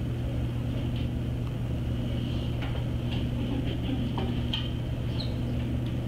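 Steady low hum of room machinery, with a few light clicks from a computer keyboard and mouse.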